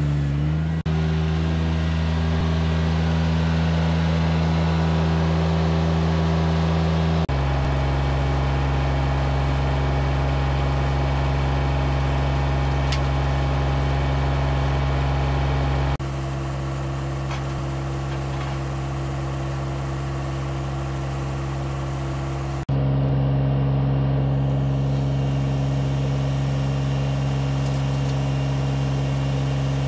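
Compact utility tractor's engine running steadily, a low even drone that jumps abruptly in pitch and loudness three times.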